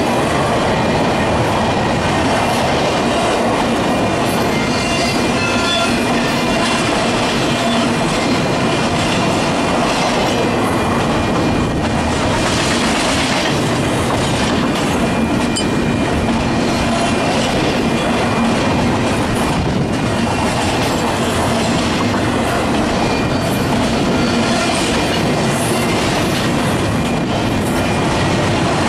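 A freight train's cars rolling past steadily, with the clatter of wheels over the rails and a faint squeal of wheels against the rail.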